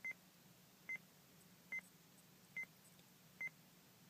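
Short, high electronic beeps, each a single tone, repeating at an even pace a little faster than one a second; five of them sound in this stretch.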